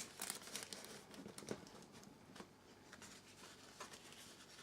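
Faint rustling and a few soft, scattered clicks of hands handling baking paper.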